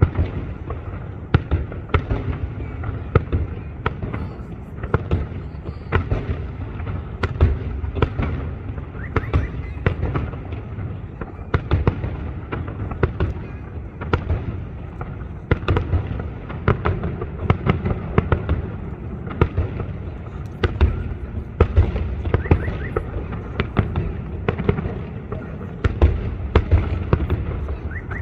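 Fireworks display: a rapid, continuous series of shell bursts and bangs, several a second.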